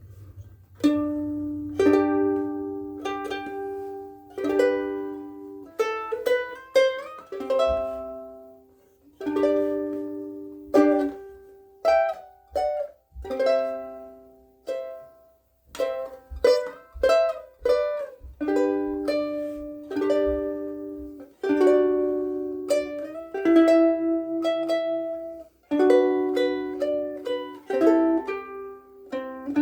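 KoAloha Pineapple Sunday ukulele with UkeSA strings played solo: plucked notes and chords ringing out, with a few sliding notes and short pauses between phrases.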